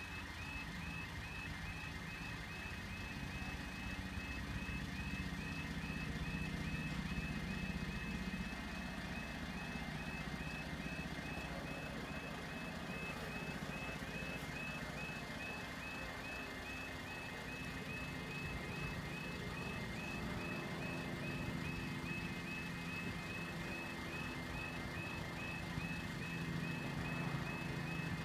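Level crossing warning alarm sounding continuously, a high repeating electronic warble at an even rate, over a low steady hum.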